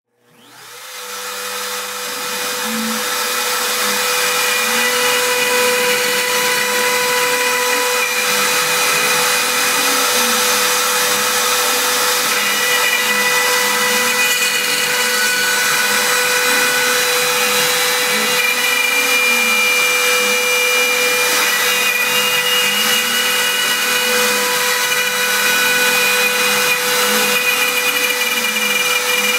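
Router spindle of a Sienci Mill One desktop CNC mill running at 30,000 rpm, a steady high whine, as a 1/8-inch single-flute endmill cuts aluminium with water as coolant. Beneath it a fainter lower hum swoops up and down again and again as the stepper-driven axes trace curves.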